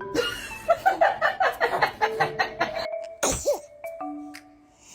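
Background music with sustained steady notes, opening with a fast run of short pitched sounds, and a small child's single sneeze about three seconds in.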